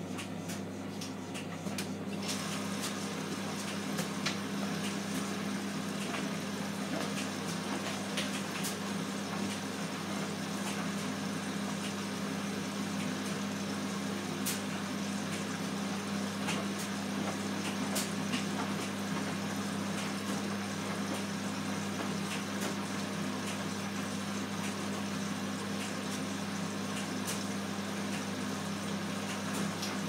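Hotpoint front-loading washing machine running a wash with a towel in the drum: a steady low machine hum under a water hiss that gets louder about two seconds in and then holds, with scattered light clicks.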